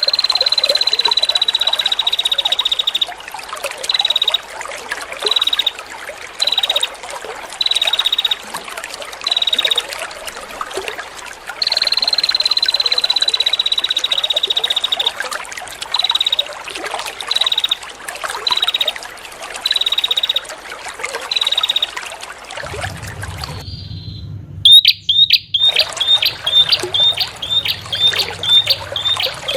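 Recorded prenjak songbird calls over trickling water. A long, high trill lasts about three seconds and is followed by a string of short high notes about once a second; this pattern repeats. Near the end a low hum comes in, and the song changes to rapid sharp chirps about two a second.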